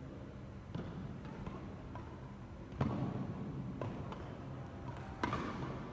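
Badminton racquets hitting a shuttlecock during a doubles rally: a series of sharp strikes, loudest about three seconds in and near the end, each echoing in a large hall, over a steady low hum.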